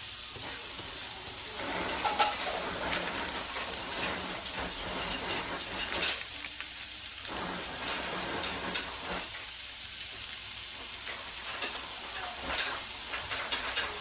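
Garlic frying in oil in a stovetop pan, sizzling steadily, with small clicks and scrapes now and then.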